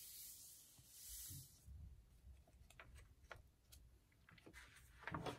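Near silence with faint handling of paper and stickers: a soft rustle for about the first second and a half, then a few light taps.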